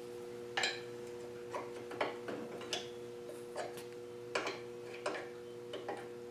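Hand wrench clinking on the steel bolts and frame of a belt grinder, about ten sharp, irregularly spaced clicks as the bolts are worked loose to tilt the grinder over. A steady low hum runs underneath.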